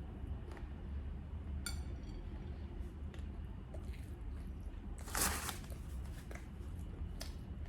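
Close-up eating sounds: soft chewing and light clicks, with a short clink at about two seconds and a louder noisy burst about five seconds in, over a steady low hum.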